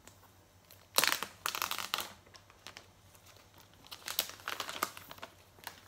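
Phone packaging being unwrapped by hand: paper and plastic wrapping crinkling in two bouts, one about a second in and another around four seconds in.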